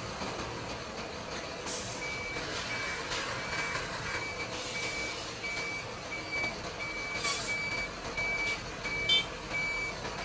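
Reversing alarm on a BharatBenz 2823C tipper truck beeping steadily about twice a second, starting about two seconds in, with a few short hisses of air.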